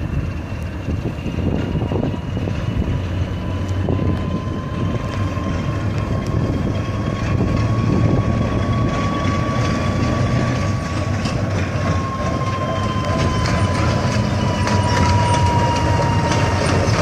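Diesel switcher locomotive running slowly past, its engine rumbling steadily and growing louder as it comes closer, with clicks from the wheels on the track. A steady high whine rides over it and sags in pitch during the second half.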